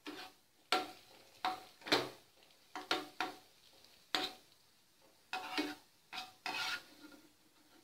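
Perforated metal skimmer scraping and knocking against a nonstick frying pan while stirring raisins in ghee, in irregular strokes about two a second.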